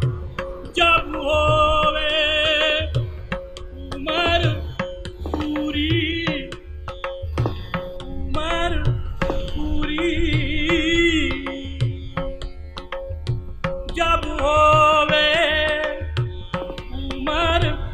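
Indian classical music: tabla strokes under a steady drone, with a heavily ornamented melody line coming in short phrases with wide vibrato.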